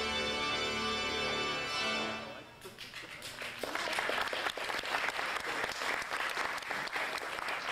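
Organ music holding a full chord, ending a little over two seconds in, followed by an audience applauding.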